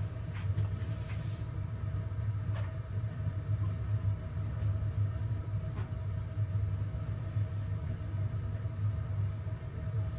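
A steady low hum, with a few faint clicks as a TACO automatic air vent is screwed back onto its fitting by hand.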